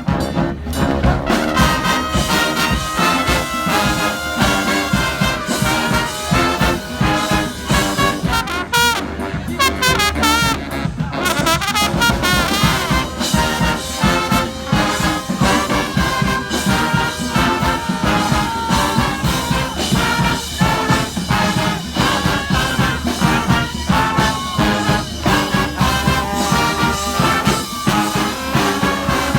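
Brass band playing an upbeat tune: horns over a steady beat. About eight seconds in, a high horn line wavers and bends for a few seconds.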